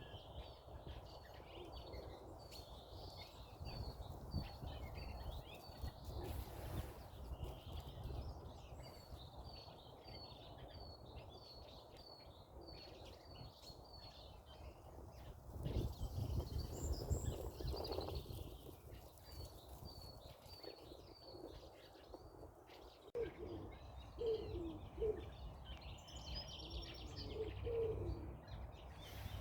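Forest birds chirping: long runs of short, high, quickly repeated chirps over a steady low rumble, with a few short low cooing notes near the end.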